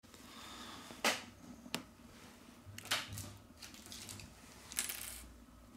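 Four faint, sharp clicks and taps, spaced a second or so apart, as a phone and small repair tools are handled.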